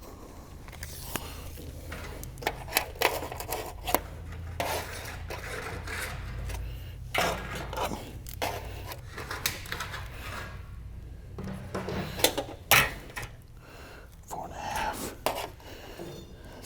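Sheet-metal valley cleat being handled and fitted on a metal roof: scattered metallic clinks, taps and scraping, with a few sharper knocks.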